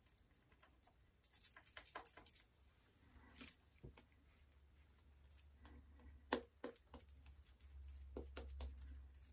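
Shaving brush working lather: quiet, scratchy swishing of the bristles in short bursts, busiest a second or two in, with a few soft clicks and a low rumble later on.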